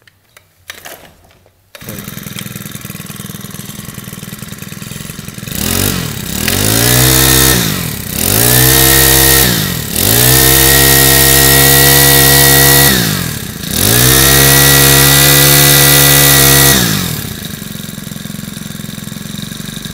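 Makita 27 cc four-stroke brush cutter engine pull-started, catching about two seconds in and idling. It is then revved to full throttle four times, dropping back to idle in between, and is switched off at the end.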